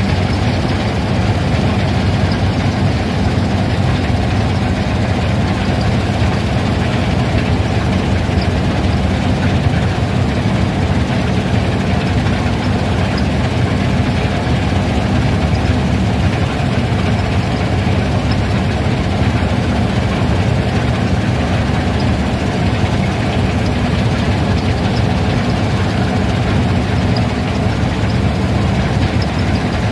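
Combine harvester running under load as it cuts triticale: a steady, unchanging engine and machinery drone heard from the operator's seat.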